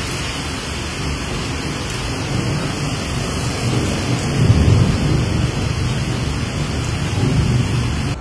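Heavy storm rain and wind, a steady rushing hiss, with a low rumble that swells about four and a half seconds in and again about seven seconds in.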